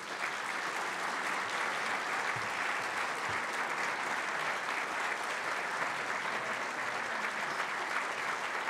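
A large audience applauding, the clapping swelling in at the start and then holding steady.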